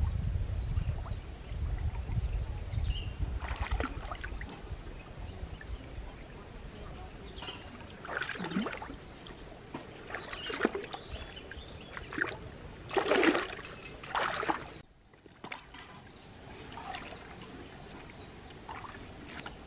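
Shallow stream water splashing and sloshing as hands grope among the stones, in several short bursts with the loudest about two-thirds of the way through. A low rumble sits under the first few seconds.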